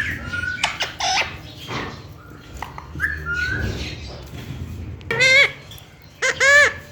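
Green parrot vocalising: short whistles and clicks, then two loud pitched calls near the end, about a second apart.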